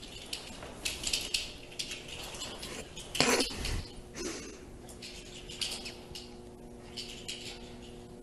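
Small dog running on carpet, with light, irregular clinking and clicking throughout. There is a louder knock about three seconds in, and a faint steady hum from about four seconds.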